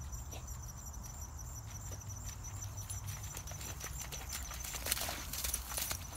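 A German Shepherd puppy's paws patter through wet grass and puddles, with a burst of louder splashing and rustling about five seconds in as it dashes through the water. A steady low rumble runs underneath.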